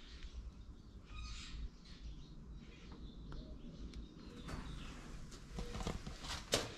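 Faint bird chirps, with several clicks and rustles toward the end and one sharp click just before it stops.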